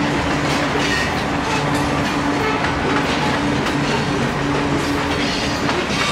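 Freight train passing: the diesel locomotives' steady engine drone, then covered hopper cars rolling by with the clickety-clack of wheels over rail joints.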